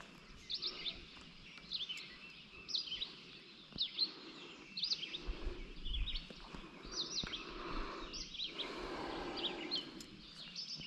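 Small birds chirping: short, high, quick chirps, one or two a second, over a soft outdoor hiss that grows a little louder in the last few seconds.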